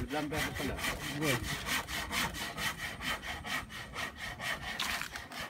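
Hand saw cutting through wood in quick, even back-and-forth strokes, about four or five a second.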